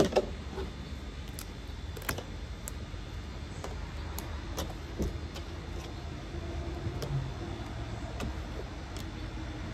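Rubber bands being stretched and wrapped around a bundled, damp sweater by hand: scattered small clicks and snaps, over a low steady background rumble.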